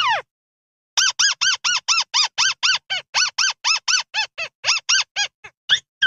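Buff-banded rail calls played as a lure recording. A falling squeal right at the start is followed by a fast run of about twenty short, arched, squeaky notes, about four a second, which grow weaker near the end. Another falling squeal begins right at the close.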